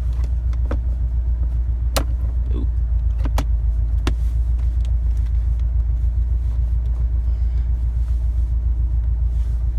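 2015+ Subaru WRX STI's turbocharged 2.5-litre flat-four boxer engine idling with a steady low rumble. A few sharp clicks sound over it, about two to four seconds in, as dash trim is plugged back into place.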